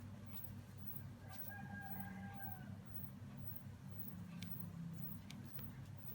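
A distant bird call, one held note about a second and a half long, over a steady low hum, with a few faint clicks.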